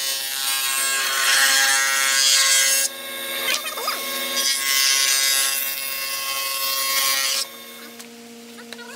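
Spindle shaper cutting the curved edge of a hardwood door panel fed by hand against a template: a steady machine whine under the noise of the cut, dipping briefly about three seconds in. The cutting stops about seven and a half seconds in, leaving a low steady hum.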